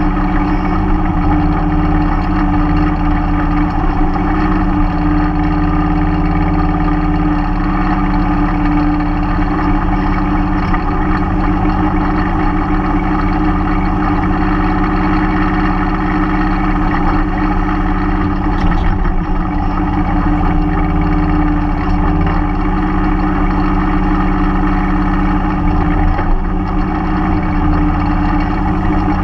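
Mahindra 3016 compact tractor's diesel engine running steadily while powering the backhoe, its pitch shifting slightly now and then.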